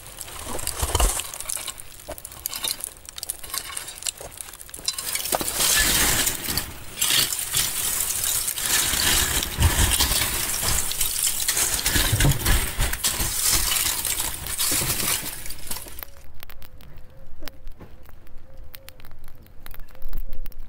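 Lumps of wood charcoal being shovelled out of a charcoal kiln, clattering and clinking against each other and the shovel with a glassy ring. The dense clatter thins to a few scattered clinks near the end.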